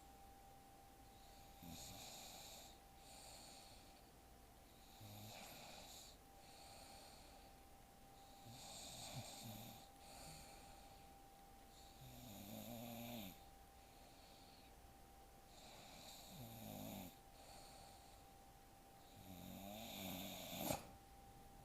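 A sleeping woman snoring softly, six snores at about one every three and a half seconds. A sharp click near the end.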